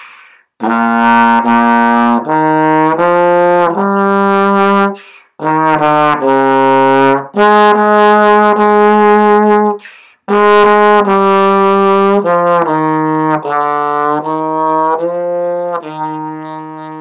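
Trombone playing a band exercise melody in sustained notes built on the dotted quarter–eighth rhythm, at an even mezzo forte. It comes in three phrases with short breaths between them and ends on a long held note.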